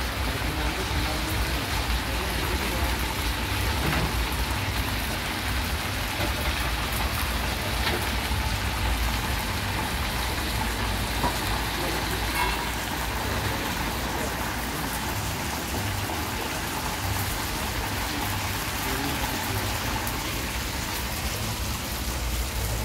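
Hot oil sizzling and bubbling steadily in a commercial deep fryer as battered chicken fries.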